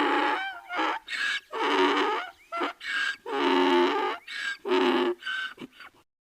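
Donkey braying: a long call ends about half a second in, then a rapid string of alternating higher and lower hee-haw calls that stops shortly before the end.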